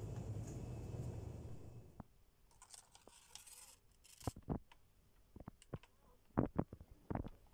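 A steady low rumble for about two seconds, then paper rustling as the protective paper sheet of a box of chocolates is lifted. After that come a series of light clicks and taps from the paper and cardboard box being handled, the loudest near the end.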